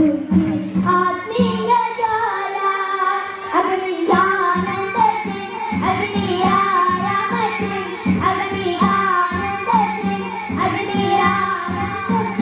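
Children singing a qawwali in unison through microphones, a boy's and girls' voices together. Underneath are a held low tone and a steady beat.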